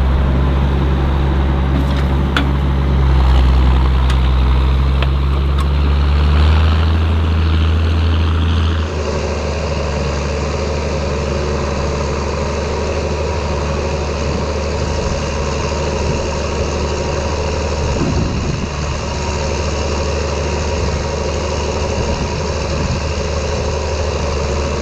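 Ford TW tractor's diesel engine running steadily under load while ploughing. The sound changes abruptly about nine seconds in.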